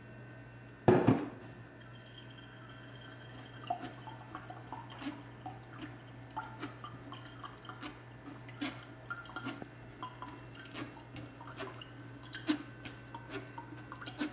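Coconut water dripping through a fine metal mesh strainer into a glass pitcher, while a spoon presses and scrapes the wet grated coconut pulp in the strainer: a run of small, irregular clicks and taps. One loud knock about a second in.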